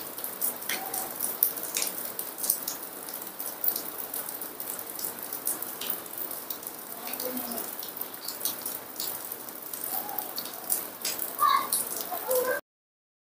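Heavy rain falling outside, a steady hiss with a dense crackle of drop ticks, and a few faint short squeaks from a baby monkey near the end.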